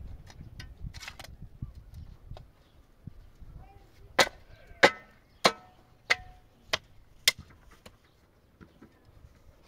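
Six sharp blows from a struck tool, evenly spaced a little over half a second apart, starting about four seconds in. A short ring follows some of them.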